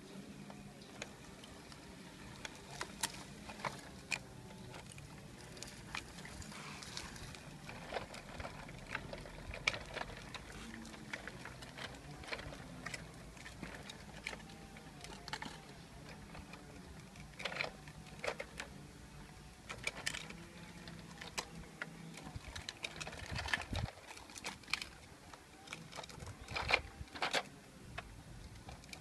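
Scattered light clicks and taps from a hard plastic toy tractor being handled and steered by its roof knob, over a faint outdoor background. The clicks come more often in the second half.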